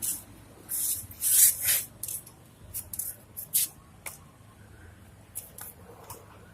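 A series of short hissing spray bursts: two longer ones of about half a second each near the start, then several brief ones spread out after them.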